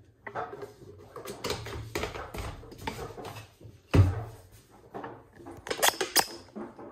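Plastic cap being fitted and screwed back onto a plastic fabric-softener bottle, with scattered clicks and scrapes of plastic handling. A heavy knock about four seconds in, as the bottle is pressed down on the counter, and a few sharp clicks near the end.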